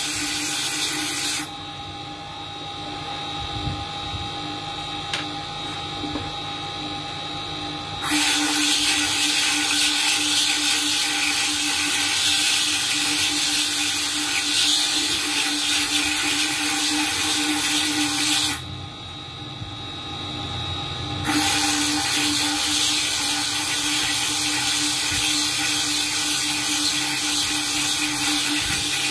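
Small motor spindle of a gemstone bead-making machine running with a steady hum while a bit grinds into a sapphire bead, giving a loud high, gritty hiss. The hiss drops away twice, about a second and a half in and again past the middle, when the bead is lifted off and only the motor's hum is left.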